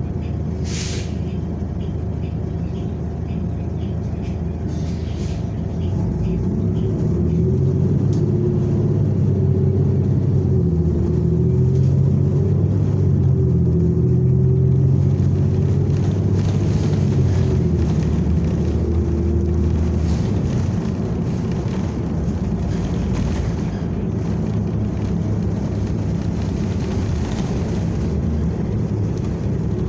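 Inside a New Flyer Xcelsior XN40 natural-gas transit bus under way: a steady engine and drivetrain drone. It grows louder from about six seconds in and eases back at about twenty seconds. A short hiss of air comes about a second in.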